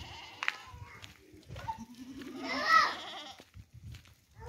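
Goat bleating once, loudly, about two and a half seconds in; a short sharp click comes near the start.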